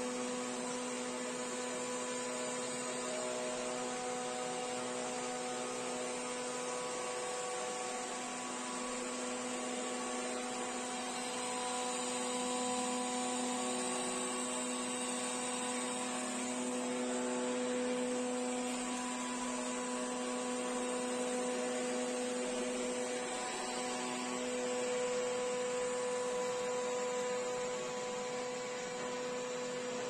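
Roborock S55 robot vacuum running, a steady whirring hum with a few held tones, growing a little louder and softer over time.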